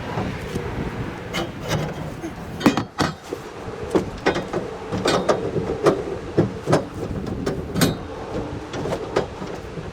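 Irregular knocks and clanks as truck rack bars and fittings are worked and seated into place by hand, a dozen or so sharp strikes at uneven intervals.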